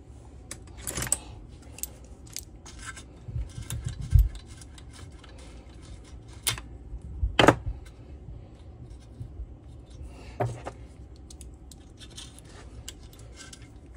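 Scattered metal clicks and clinks of locking pliers gripping and working a part on the cylinder of a Stihl TS 700/800 cut-off saw, with a few louder knocks about four and seven seconds in.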